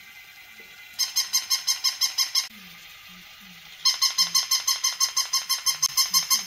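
Battery-operated walking plush toy puppy giving rapid, high electronic yaps, about seven a second, in two runs: one from about a second in lasting a second and a half, and a longer one starting about four seconds in.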